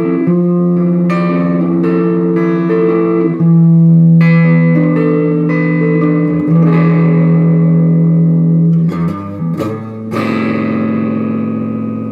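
Gibson Les Paul Custom electric guitar through a Bugera V5 tube amp on a crunchy, lightly overdriven setting, playing a slow phrase of sustained notes. Near the end a few quick strums land on a final chord that rings out and slowly fades.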